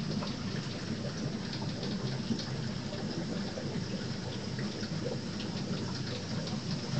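Aquarium water running and splashing steadily, like a filter return trickling into the tank, with a steady low hum underneath and many small crackling drips.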